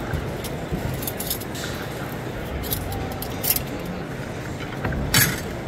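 Metal clinks and clatter from stainless steel chafing dishes being handled, with one louder clatter about five seconds in, over the steady chatter and hubbub of a busy exhibition hall.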